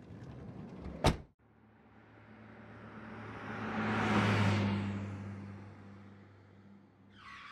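Sound effect: a sharp hit about a second in, then a rushing whoosh over a low steady hum that swells to its loudest about four seconds in and fades away.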